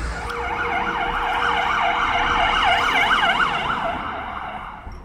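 Emergency vehicle siren in a fast rising-and-falling yelp, about three sweeps a second, growing louder and then fading as the vehicle passes and moves away.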